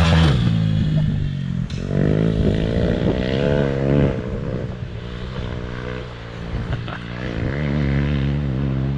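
Kawasaki KLX351 dirt bike's single-cylinder four-stroke engine, with aftermarket header and exhaust, revving up and down in several surges while it rides and jumps, with a quieter lull partway through.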